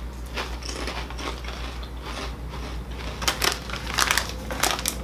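Potato chips being crunched and chewed, a run of short crackly clicks, with a denser patch of crackling about three seconds in as the chip bag is handled.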